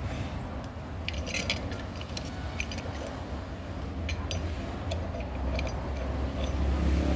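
A socket tool clinks and ticks against the bolt and steel bracket of an old engine mount as the bolt is worked loose, in scattered short metallic clicks, over a steady low hum.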